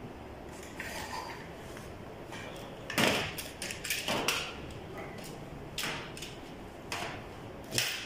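Several sharp clicks and knocks from hands working at a front-load washing machine's plastic front and door, the loudest about three seconds in, with more spaced through the rest.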